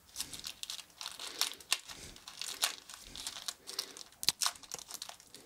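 Thin plastic wrap crinkling and crackling in irregular bursts as it is peeled off a small camera by hand.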